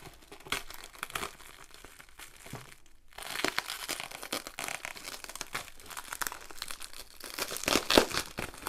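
Taped black plastic wrapping around a cardboard box being cut with scissors, then torn and pulled away: irregular crinkling and tearing of plastic and tape. It gets louder and busier from about three seconds in.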